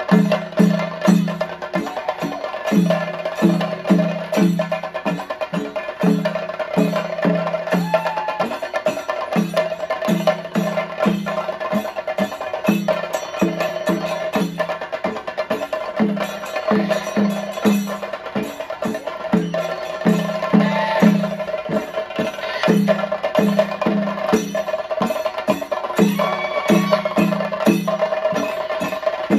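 Chenda drums beaten with sticks in a fast, unbroken rhythm of sharp cracks, with groups of deeper strokes and a steady ringing tone held above the drumming.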